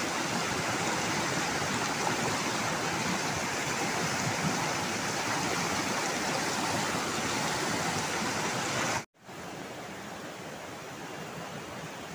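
Fast river water rushing over rocks, a steady white-water noise. About three-quarters of the way through it cuts out for an instant and comes back quieter.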